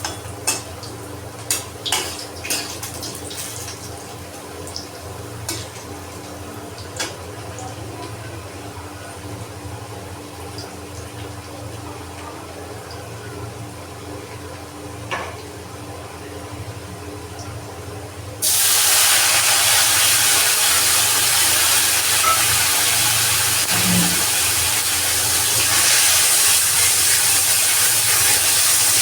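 A few light clicks of utensils on a pan over a steady hum, then about two-thirds of the way in a loud sizzle starts suddenly, as ingredients go into hot oil, and keeps going.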